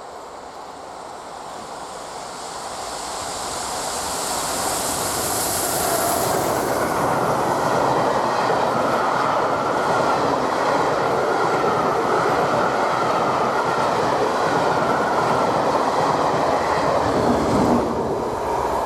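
Steam-hauled Pullman train passing at speed. It builds as it approaches over the first several seconds, then holds a steady rush of wheels on rail as the coaches go by, and drops off near the end.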